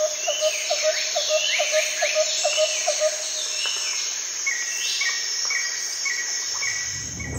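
Insect chorus in tropical forest: a steady high-pitched buzzing drone. Over it, a low chirp repeats about three times a second through the first three seconds, alongside rising higher calls, and a short clipped note repeats about twice a second over the last three seconds.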